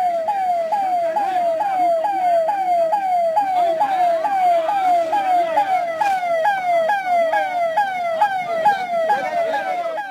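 Ambulance siren sounding in a fast, evenly repeating falling sweep, about two and a half sweeps a second.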